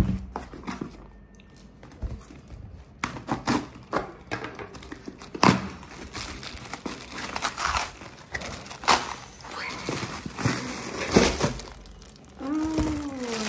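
Cardboard shipping box and its packing tape torn open by hand, with the plastic wrapping of a makeup pouch crinkling: a string of sharp rips and crackles, busier from about three seconds in.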